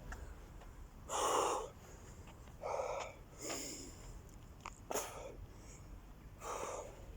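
Hard, gasping breaths of a man winded mid-way through a long set of burpees, about five deep breaths a second or so apart.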